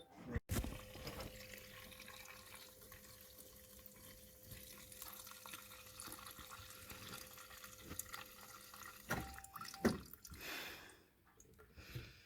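Fuel running from the fuel line into a container during a timed fuel-flow test. Under it is a faint steady hum from the electric fuel pump, which steps up in pitch briefly and then cuts off shortly before the end.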